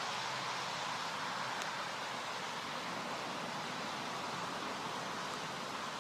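Steady hiss of rain falling, even and unchanging throughout.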